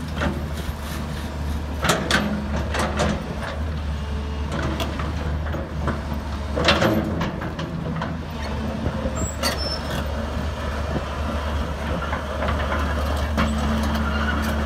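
Diesel engine of a Daewoo 220 crawler excavator running steadily under hydraulic work, with several sharp metallic clanks and knocks, the loudest about two and seven seconds in, as the machine sets down on its tracks and slews.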